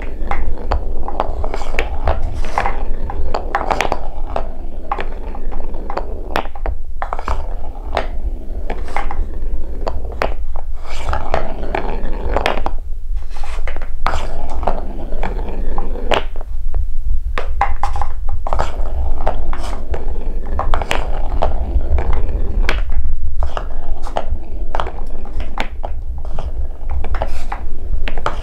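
Large wooden balls rolling along a curved wooden marble-run track: a steady low rolling rumble with frequent sharp clacks as the balls knock against one another and the wooden pieces.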